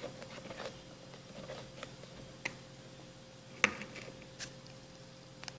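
Silicone spatula scraping a soft, creamy cake batter around a mixing bowl, with wet squishing strokes and a few sharp clicks, the loudest about three and a half seconds in. A faint steady hum lies underneath.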